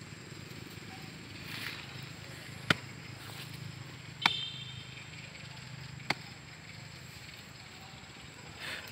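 Macaques shifting on dry leaf litter: a couple of soft leaf rustles and three sharp clicks or snaps, about a second and a half apart.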